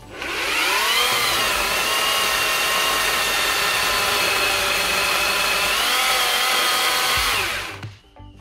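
Battery-powered chainsaw, its chain mounted the right way round, spinning up and cutting into a tree trunk: the motor whines up to speed within about a second, runs steadily in the wood, and winds down near the end.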